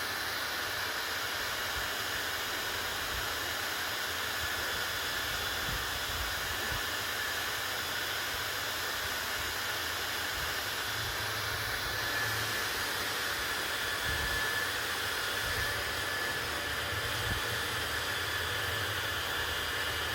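Hair dryer running steadily: an even rush of air with a faint high whine from its motor.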